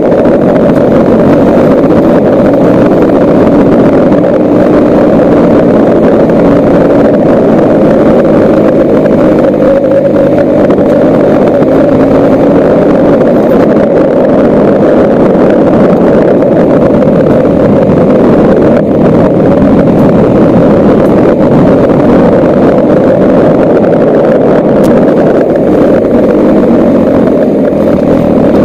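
Motorcycle riding at a steady speed on a gravel road: the engine runs evenly under a constant rush of wind and tyre noise on gravel, with no rise or fall in speed.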